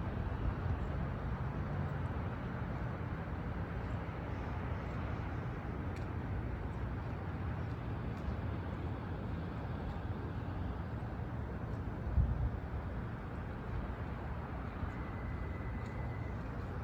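Steady low rumble of outdoor background noise, with a single thump about twelve seconds in and a faint high tone near the end.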